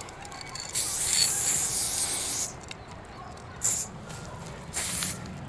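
Garden pressure sprayer spraying paint in hissing bursts: one long burst of about a second and a half, then two short bursts near the end.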